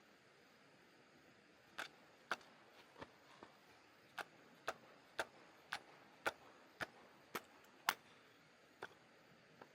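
Firewood being split: sharp, evenly spaced knocks of strikes on wood, about two a second, starting about two seconds in.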